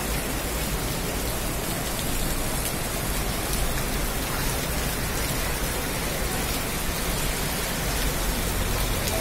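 Heavy torrential rain pouring down onto a flooded paved street, a dense, steady hiss.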